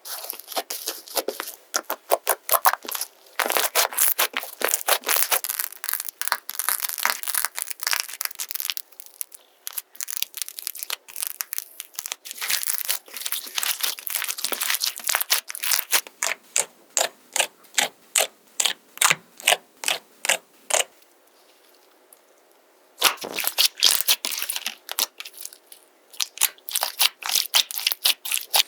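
Slime being poked, pressed and pinched by hand, giving bursts of sharp crackles and snaps. Partway through it settles into regular pokes about two a second, goes quiet for a couple of seconds, then crackles densely again.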